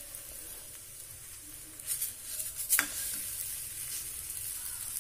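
Paneer paratha sizzling in oil on a hot tawa, a steady hiss, with two light taps about two and three seconds in.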